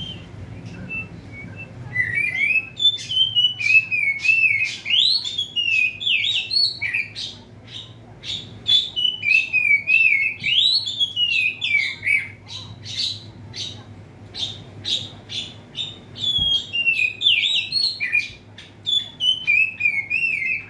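Oriental magpie-robin singing in full, continuous song: varied whistled phrases gliding up and down, mixed with sharp high chips. The song starts about two seconds in.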